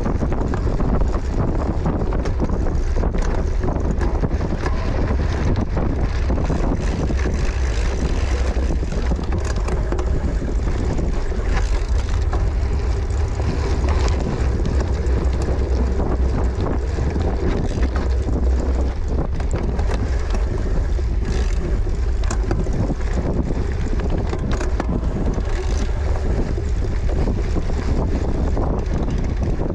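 Wind buffeting the microphone of a camera riding along in a cyclocross race: a steady low rumble of rushing air, broken by frequent small rattles and knocks.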